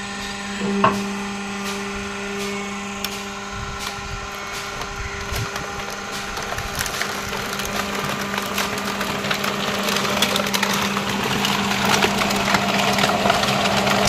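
Hydraulic plastic waste baler's power pack humming steadily. A dense crackling and crunching, typical of PET bottles being compressed, builds from about halfway through and grows louder toward the end.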